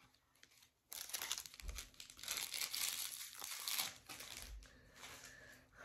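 Foil wrapper of a Pokémon trading-card booster pack crinkling as it is torn open and handled. It starts about a second in, is loudest for the next few seconds and then thins out, with a couple of soft low bumps.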